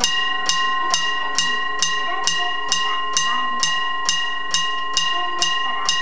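Mechanical bell of an old bell-type railway level crossing, struck by its hammer about twice a second, each stroke ringing on into the next. It is the crossing's warning that a train is coming and the barrier is about to lower.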